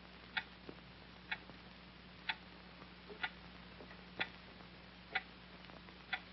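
A clock ticking steadily, about one tick a second, over a faint steady hum.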